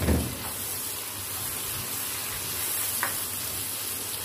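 Chopped tomatoes, onion, garlic and ginger sizzling in oil in a nonstick wok while a spatula stirs them, the tomatoes now softened. A knock right at the start, with a small click about three seconds in.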